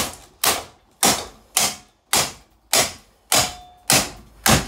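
Repeated hard hammer blows on a Lanson ceiling fan, about nine strikes at an even pace of roughly two a second, each with a brief ringing tail.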